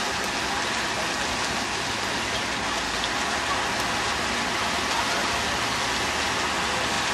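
Rows of fountain jets spraying up and splashing back into a pool: a steady hiss of falling water.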